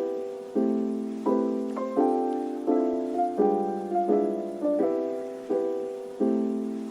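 Background piano music: soft chords struck about every three-quarters of a second, each ringing and fading before the next.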